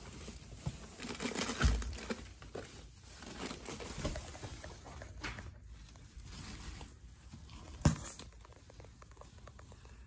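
Thin foam packing sheet and cardboard box rustling and crinkling as a computer monitor is unwrapped by hand. A single sharp knock comes about two seconds before the end.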